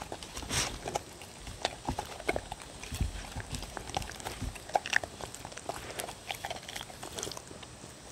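Two dogs licking the last food from wooden bowls: irregular wet licking clicks and small knocks, a few heavier bumps about three and four and a half seconds in.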